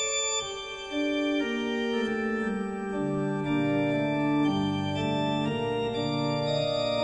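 Church organ played at a two-manual console with pedalboard: held chords that change about once a second, with lower notes joining about three seconds in.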